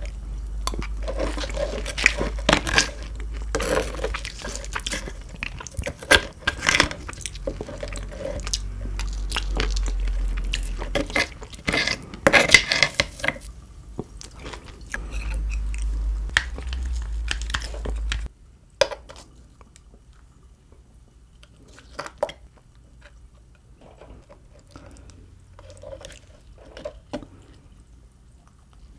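Close-miked eating sounds: wet chewing and crunching with occasional clinks of dishes or cutlery, over a low hum. About 18 seconds in, the hum cuts off abruptly, leaving only sparse, soft mouth clicks.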